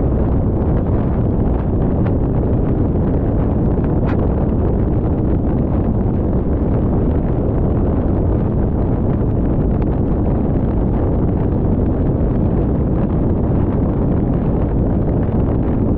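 Steady road and wind noise from a car travelling at highway speed, heard from inside the car: an even, deep rushing of tyres and air with no engine note standing out.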